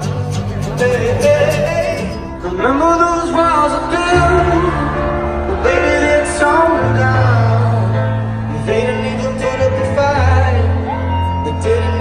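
A pop band playing live through a concert PA, recorded from within the crowd: held bass notes under a lead voice singing a melody that bends up and down.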